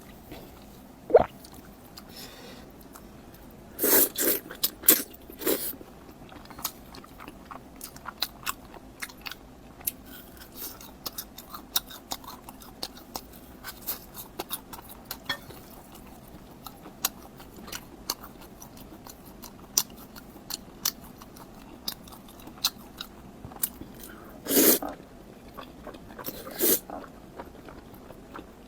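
Close-miked eating sounds: crunchy bites and chewing, with a steady run of small crackles and louder crunching bites around four seconds in and again near the end.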